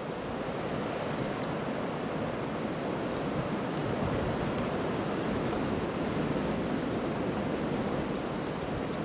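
Steady wash of the sea surging against the rocky shore below, mixed with wind.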